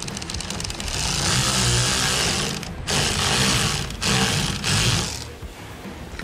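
Cordless power tool driving a screw into a speed clip in three short bursts, tightening it down.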